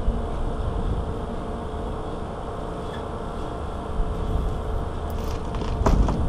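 Steady low rumble with a faint steady hum, and a few short clicks late on.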